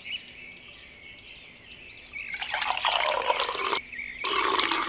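Liquid pouring in two bursts of about a second and a half each, starting about two seconds in, over faint background birdsong chirps.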